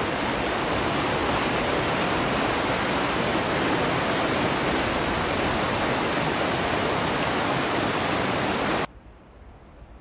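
A steady, even rushing noise like running water or a hiss, which stops abruptly about nine seconds in.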